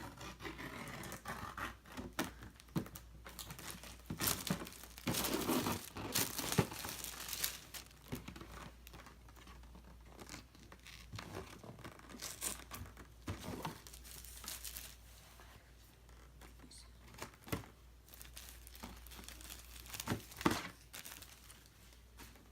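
Packaging of a sealed collectible box being torn open and handled: irregular tearing, crinkling and sharp clicks, busiest about four to seven seconds in and again near the end.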